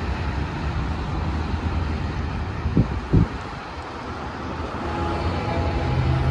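Road traffic passing on the road beside the track: a steady low rumble, with two brief thumps about three seconds in.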